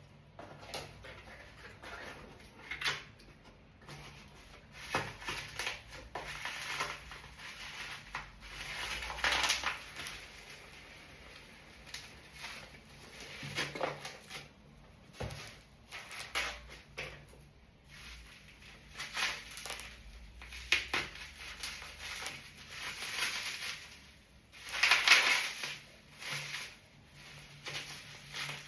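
Plastic and cardboard packaging rustling, crinkling and tearing in irregular handling bursts as a parcel is unboxed. The loudest crinkle comes about 25 seconds in.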